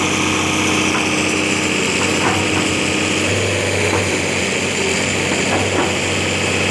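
1978 International 3600A backhoe's engine running steadily while the machine is being operated, with a few faint knocks scattered through.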